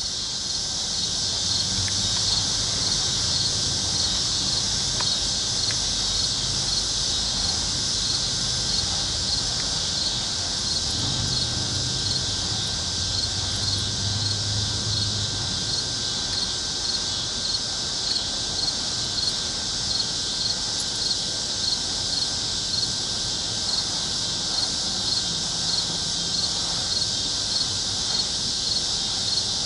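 Evening insect chorus: a steady high-pitched drone of insects with a regular chirp repeating about twice a second.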